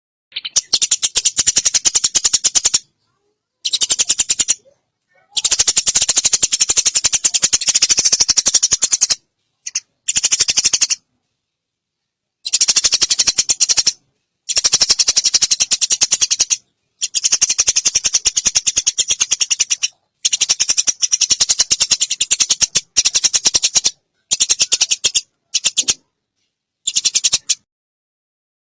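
Eurasian tree sparrows chattering: fast, dense runs of high chirps in bursts of one to four seconds, each cut off abruptly by a short silent gap.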